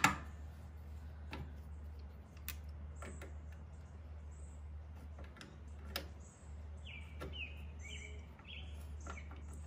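A few sharp, faint metal clicks from pliers working the footpeg's retaining clip and pin, over a low steady hum, with short high chirps around the middle and again near the end.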